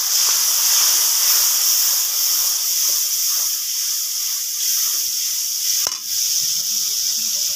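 Water hissing and sizzling as it hits hot mustard oil and onion-spice masala in a kadai, sending up steam. The hiss is loud and steady. A splash of water is added at this stage to keep the spices from burning.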